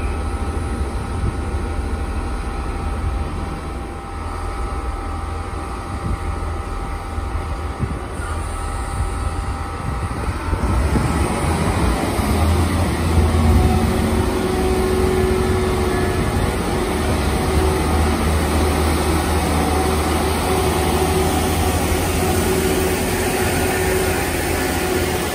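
Class 166 diesel multiple unit's underfloor diesel engines running steadily, then opening up about ten seconds in as the train pulls away, the engine note getting louder and fuller and staying up.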